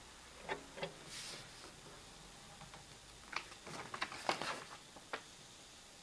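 Sheet of origami paper being handled and unfolded: two soft crackles about half a second in, a brief swish, then a cluster of crisp paper crackles and snaps between about three and four and a half seconds in, with one more shortly after.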